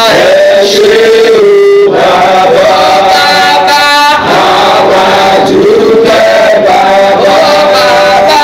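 Several voices singing together in a chant-like song, holding long notes.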